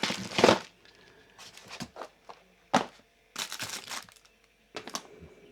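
Handling noises: a loud rustle at the start, a sharp click a little under three seconds in, and more crinkling and rustling after it, with quiet gaps between.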